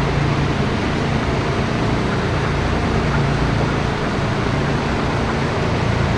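Steady drone of a broiler shed's temperature-controlled ventilation fans running, an even rushing noise over a constant low hum.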